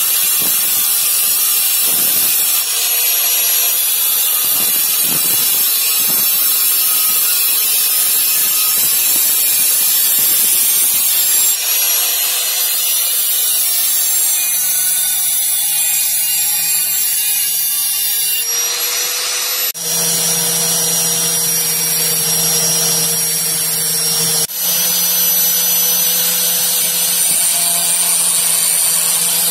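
Electric angle grinder cutting and grinding a thin steel knife blank: a steady motor whine under a harsh, high hiss. The sound shifts abruptly a few times, and a lower hum comes in about two-thirds of the way through.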